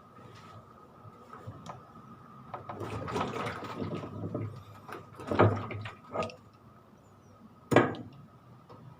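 Tool work on a stubborn washing-machine fastening: a large 38 mm hex socket and wrench scraping and clanking as the nut is worked loose, with a few sharp knocks in the second half.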